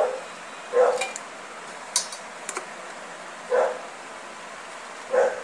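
A dog barking: four short barks spaced unevenly about one to three seconds apart, with a couple of light clicks about two seconds in.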